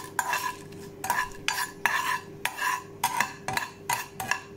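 Metal spatula scraping and tapping against a non-stick frying pan in short, repeated strokes, two or three a second, as it stirs dry red chillies frying in a little mustard oil.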